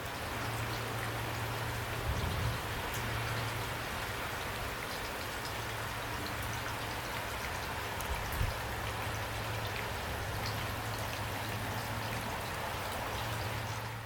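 Heavy rain falling steadily: a dense hiss with scattered patter of individual drops and a steady low rumble underneath. Two brief low thumps come through, about two seconds in and again around eight seconds.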